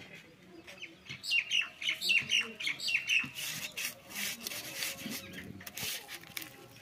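A bird chirping in a quick series of short calls for the first couple of seconds, followed by irregular scraping and rustling as hands rub turmeric and salt into rohu fish pieces on a dried-leaf plate.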